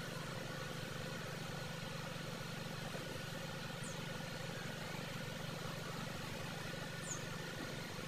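A steady low hum over an even background noise, with two faint, short high chirps.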